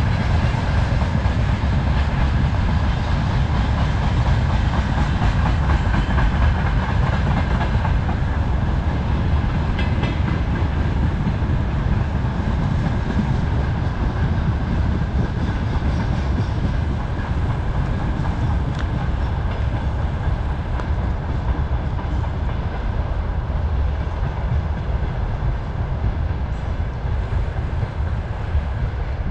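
Freight train hauled by a VL-series electric locomotive rolling past steadily, its wagons rumbling on the track, easing a little toward the end.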